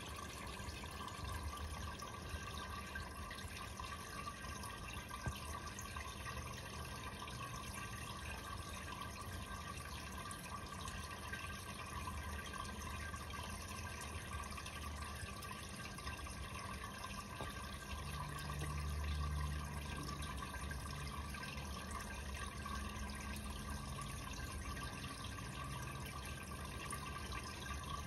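Fish-tank water trickling and bubbling steadily, with a low pump hum underneath that swells briefly about two-thirds of the way in.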